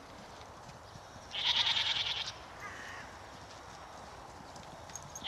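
A horse whinnying once: a loud, high, quavering call about a second long, starting about a second in.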